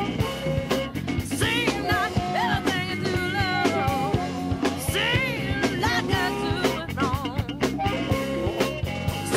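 A recorded rock song played by a band: a drum kit keeps a steady beat under guitar, with wavering, bending pitched lines over the top.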